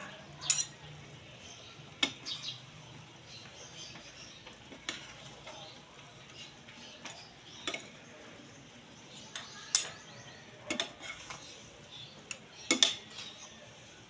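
Metal utensils clinking and scraping against a pan as pancit noodles are tossed and stirred, in irregular sharp knocks every second or two, over a faint steady sizzle.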